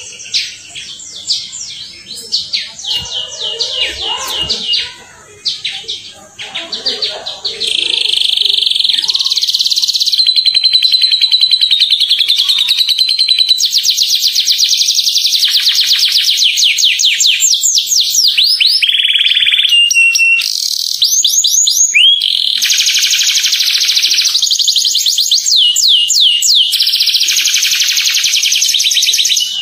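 Domestic canary singing a long, clear song of rapid trills: fast runs of repeated notes, rolling trills and a held whistled note. It gets much louder and nearly continuous from about eight seconds in.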